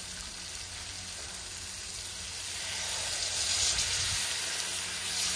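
Hassar fish and eddoes sizzling in curry in a large aluminium pot. The sizzle grows louder from about two seconds in, as coconut milk is poured into the hot pot.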